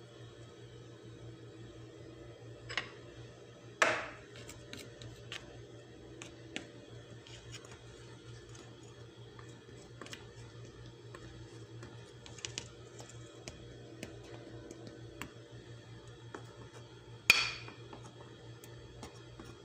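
Metal spoon clinking against a ceramic bowl and dish while a cream mixture is spooned out: two sharper clinks with a short ring, about four seconds in and again near the end, and light taps between, over a low steady hum.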